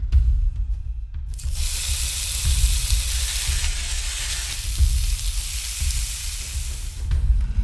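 Food sizzling as it fries in a hot oiled pan, starting about a second and a half in and dying away near the end. Background music with a deep low beat runs underneath.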